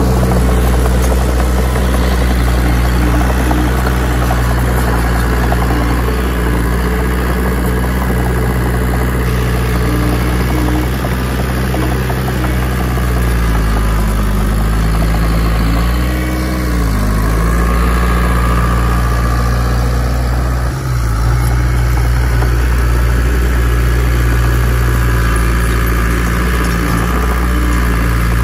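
Caterpillar bulldozer's diesel engine running steadily. About halfway through, its pitch dips and then rises again, and a few seconds later there is a single short thump.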